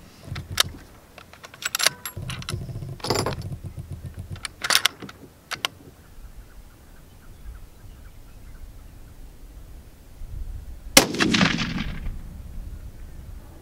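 Sharp clicks and clacks as the rifle is handled in the first few seconds, then a single shot from a Christensen Arms Mesa rifle in 7mm Remington Magnum about eleven seconds in, ringing out and fading over a second or so.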